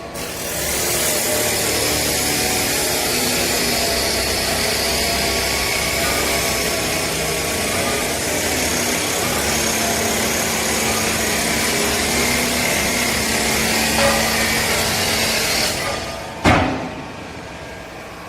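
Hydraulic vertical lifting-chamber baler running: a loud, steady machine noise that stops about 15 seconds in, followed by one sharp bang.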